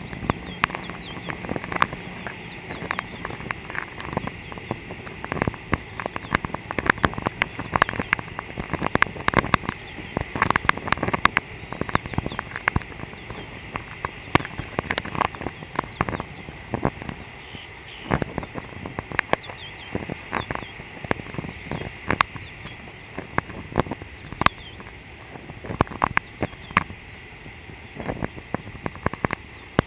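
Steady high-pitched insect chorus, with many irregular sharp clicks and taps scattered throughout, louder than the chorus.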